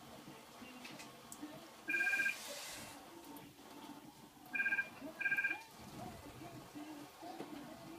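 Electronic beeps, each two steady tones sounded together: one beep about two seconds in, then two quick beeps a little after four and a half seconds, a pattern like a telephone ringing.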